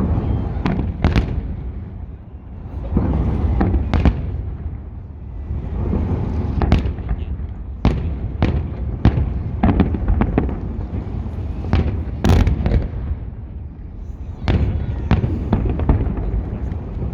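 Fireworks salute: many shells bursting in sharp, irregular bangs, several a second at times, over a continuous low rumble that swells and fades.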